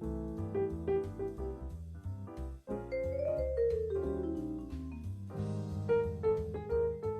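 Jazz played over a backing track: a melody instrument with a mallet-like, vibraphone-like sound plays quick improvised lines over a bass. It climbs, then a long run falls in pitch through the middle.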